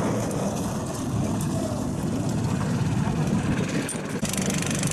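Fishing boat engine running as the boats move through broken lake ice, a steady dense noise that changes abruptly about four seconds in.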